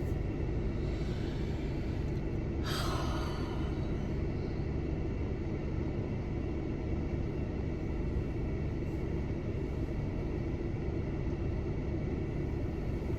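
Steady low rumble with a faint hum underneath. About three seconds in there is a short breathy hiss that fades within a second.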